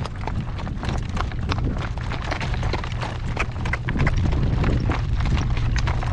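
Shod horse's hooves clip-clopping in a run of irregular sharp knocks, over a steady low rumble.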